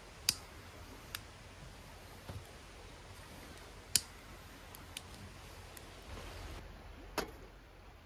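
About six sharp, isolated clicks at irregular intervals over a faint steady background, the loudest ones near the start and about halfway through.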